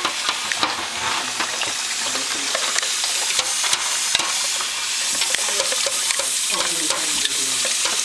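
Water from a kitchen faucet running and splashing into a stainless steel pot in the sink, steady throughout, with scattered light clinks and knocks as the pot is scrubbed and handled.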